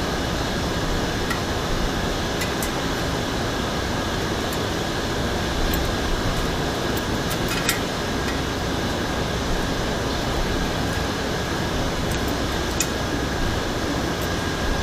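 Steady background hiss and hum, like a fan running, with a few light, sharp clicks scattered through.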